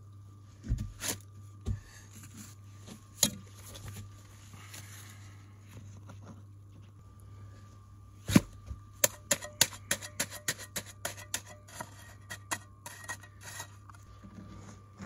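Small river stones knocking and clinking against each other as they are stacked into a dry stone wall: a few separate knocks in the first few seconds, then a quick run of sharp clicks over the second half. A faint steady hum runs underneath.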